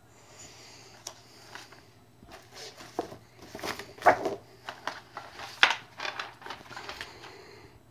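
Glossy paper brochures and booklets rustling and sliding as they are handled, with a few sharper clacks, the loudest about four and five and a half seconds in.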